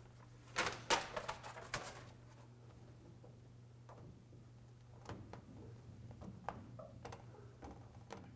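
Paper backing crinkling and rustling as it is peeled from a self-adhesive foil-faced insulation mat, loudest in a burst during the first two seconds. It is followed by softer, scattered crinkles and rubbing as hands press the foil-faced mat into place, over a steady low hum.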